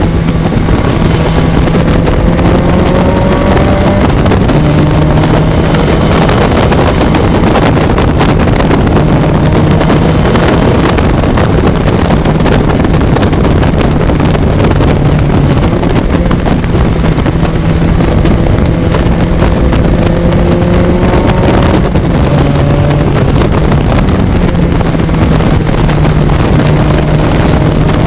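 Toyota VITA-01 race car's 1.5-litre four-cylinder engine running hard, heard from onboard at speed. Its pitch climbs through the revs and drops back several times as the car accelerates and lifts or shifts. Heavy wind rush on the microphone runs under it throughout.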